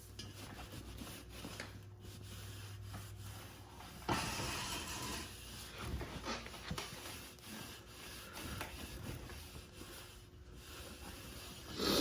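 A cleaning rag wiping and rubbing over the metal mating surface of a wheel barrel with alcohol-based cleaner, as an irregular scratchy rubbing with a louder wipe about four seconds in.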